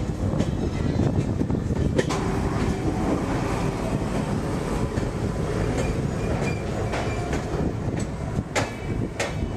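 Passenger train coach rolling along the track, heard from the side of the moving coach: a steady rumble of wheels on rail with sharp clacks as the wheels cross track joints, one about two seconds in and two louder ones near the end.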